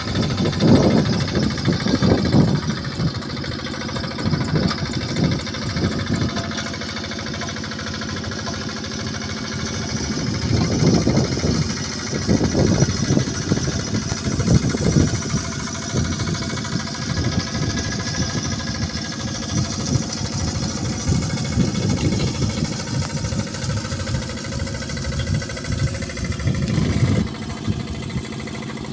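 The Yanmar TF65R single-cylinder diesel engine on a Quick Impala two-wheel hand tractor, running under load as the tractor pulls through wet paddy mud. Its loudness swells and eases every few seconds as the load changes.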